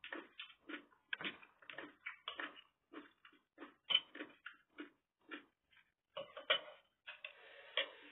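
A metal spoon clinking and scraping against ceramic plates and bowls as food is served, a quiet run of small irregular taps, two or three a second, bunching together near the end.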